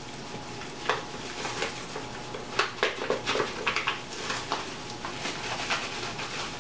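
Crinkling and rustling of thin plastic food-prep gloves as hands work inside a stainless steel mixing bowl, with light scrapes against the metal. It comes as scattered short crackles, busiest in the middle.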